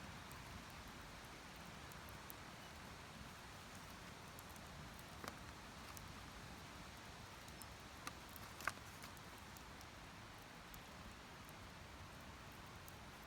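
Very quiet background with a few faint, sharp clicks or pops, the loudest about nine seconds in.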